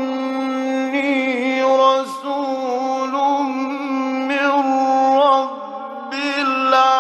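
A male reciter chanting the Quran in the long-drawn melodic style, one voice holding wavering, ornamented notes; it dips briefly about five and a half seconds in, then a new phrase begins. The sound is that of an old 1960s radio recording.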